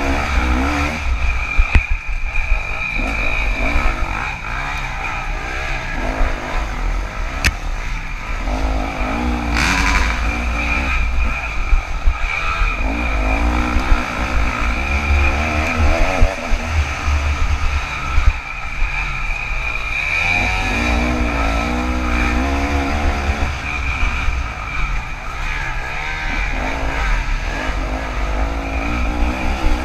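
KTM 300 two-stroke dirt bike engine being ridden hard, heard close up from an onboard action camera. The throttle opens and closes constantly, so the engine note climbs and drops every second or two, with an occasional knock from the bike.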